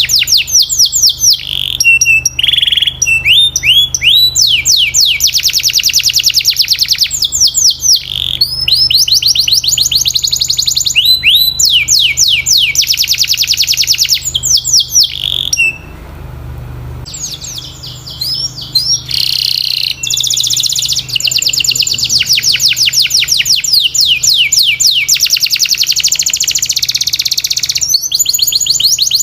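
Domestic canary singing: long runs of rapid, high trills of repeated downward-sweeping notes, switching from one trill to another every second or two, with a brief pause about halfway through.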